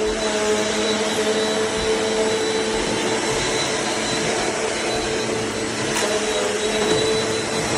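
Eureka AirSpeed bagless upright vacuum cleaner running steadily: a constant motor whine over the rush of air.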